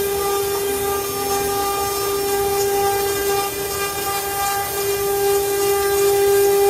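CNC wood carving router running: the spindle motor gives a steady, high whine over a hiss, with no change in pitch.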